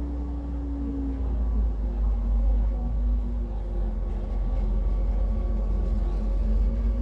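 Train moving at a station: a steady low rumble with faint humming tones, growing louder over the first two seconds.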